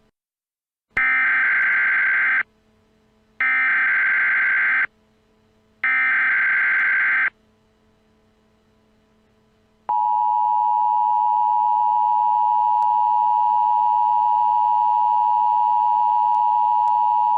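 Emergency Alert System sequence: three short bursts of digital SAME header data, a harsh electronic screech each about a second and a half long, separated by short gaps. After a longer pause comes the steady two-tone EAS attention signal, which starts about ten seconds in and holds on without a break.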